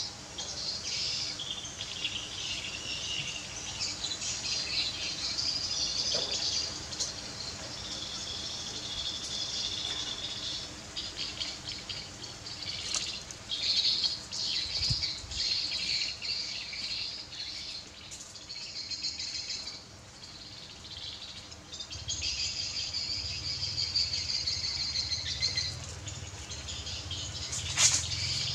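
Outdoor chorus of birds chirping and insects trilling steadily, with a low hum coming in about two-thirds of the way through and a single sharp click near the end.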